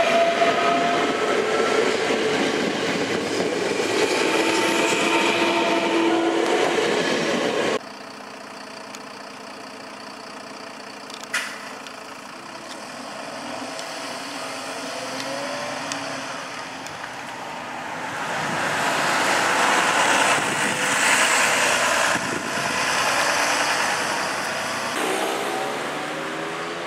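NS double-deck electric train passing close at speed, with a whine rising in pitch over the rumble of the wheels, cut off abruptly after about eight seconds. Then a Mercedes-Benz Citaro diesel city bus running, with one sharp click, swelling louder midway as it drives by.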